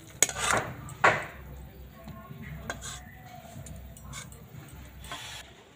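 Metal cooking pan knocking and scraping against a melamine plate as curry is tipped out to serve: two sharp clanks in the first second or so, then lighter knocks and scrapes.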